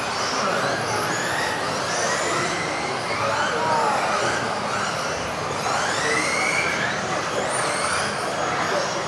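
Several electric RC off-road buggies racing, their motors whining in many overlapping rising and falling glides as they speed up and slow down, over a steady hiss.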